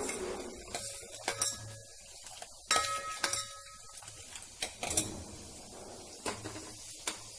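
Steel ladle clinking against the side of a steel saucepan of sugar syrup, several separate clinks, with the loudest one about three seconds in ringing on briefly like struck metal.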